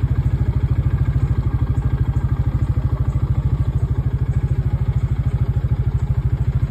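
Bighorn 400 UTV engine idling with a rapid, even low pulse that stays steady throughout.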